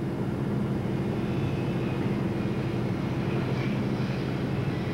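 Steady drone of a boat's engine running at an even speed, holding one pitch.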